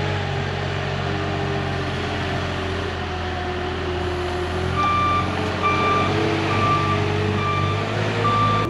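Delivery truck engine running steadily. From about five seconds in, its reversing alarm beeps about once a second as it backs up.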